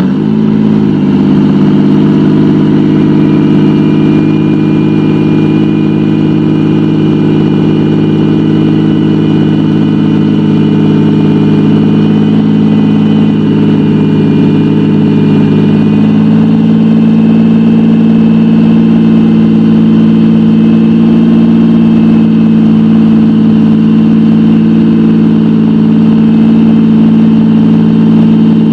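1991 Lamborghini Diablo's 5.7-litre V12 idling loud and steady just after start-up, settling within the first second. The tone shifts slightly about halfway through.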